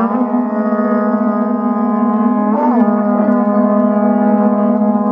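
Horagai conch-shell trumpets blown as a long, loud, held low note, with a brief wobble up and back in pitch about two and a half seconds in.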